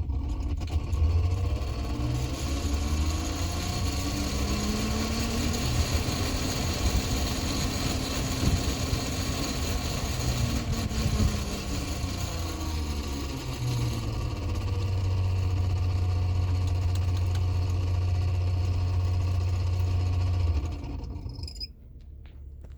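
2017 Toyota Sienna's HVAC blower motor running noisily, with air rushing through the vents over a low hum. Its whine climbs in pitch as the fan is turned up, falls again partway through, and the fan shuts off near the end. The noise comes from a failing blower motor.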